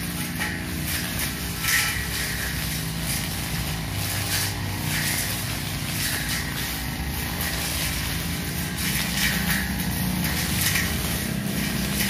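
Engine of a 328-type brush cutter running steadily at cutting speed. Its long 45 cm metal blade swishes through grass and weeds in repeated sweeps, about one a second.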